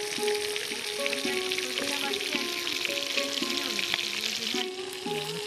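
Small fish frying in hot oil in a steel kadai over a wood fire: a steady crackling sizzle, with background music playing a melody over it.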